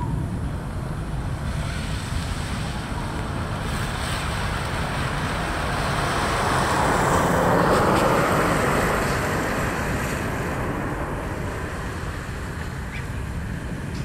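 Steady rumble of distant traffic, swelling as a vehicle passes about seven to nine seconds in and then fading.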